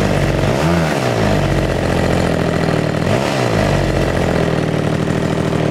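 Small NGH 17cc gas engine in an RC P-51 Mustang model running steadily near idle, its revs blipped up and back down twice, about a second in and again just after three seconds.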